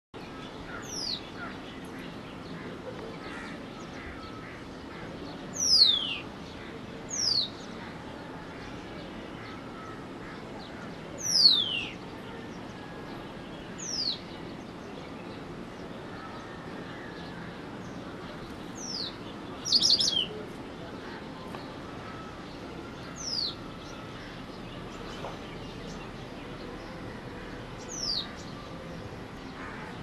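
White-browed wagtail (Motacilla madaraspatensis) calling: short, high notes that slide steeply down in pitch, given singly every few seconds. About two-thirds of the way through comes a quick run of several notes.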